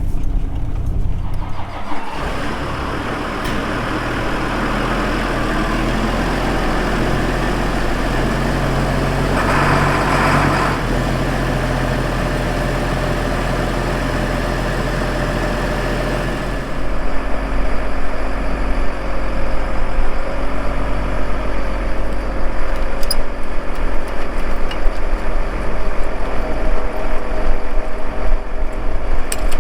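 A vehicle engine running steadily under way. About two-thirds of the way through it becomes louder and rougher.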